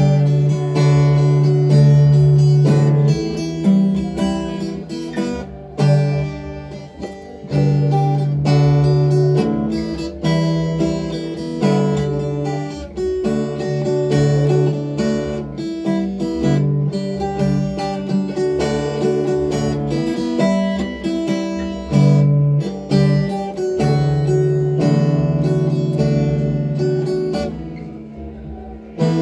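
Acoustic guitar playing an instrumental piece, chords strummed and notes picked, with a steady low hum underneath.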